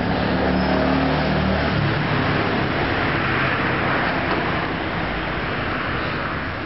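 Motor vehicle noise: a low engine hum for the first couple of seconds, then a steady rushing road noise.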